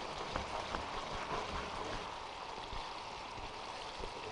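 Sauce bubbling in a pan on the hob as it thickens, stirred with a spoon, with a steady hiss and a few faint scrapes.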